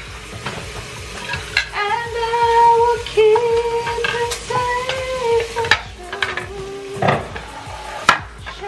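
A song plays with long held sung notes over a steady hiss of running tap water, with a few sharp clatters of dishes being set down.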